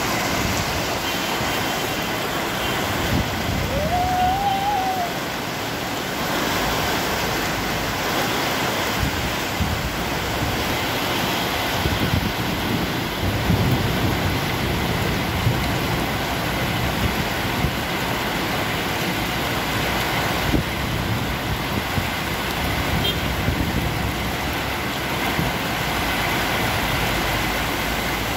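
Heavy rain pouring down steadily onto a flooded street, with low rumbles rising now and then around the middle.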